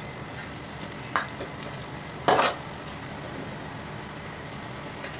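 Sautéed vegetables sizzling steadily in an aluminium pot as a ladle stirs them, with a sharp click about a second in and a short loud rush about two seconds in as julienned carrots are tipped into the pot.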